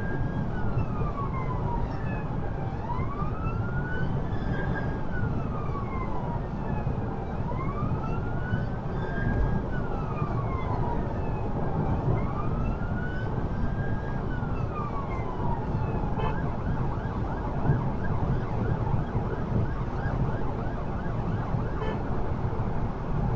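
Emergency response car's siren on a slow wail, heard from inside the cabin, rising and falling about every four and a half seconds. It stops about two-thirds of the way in, leaving steady tyre and road noise at about 100 mph.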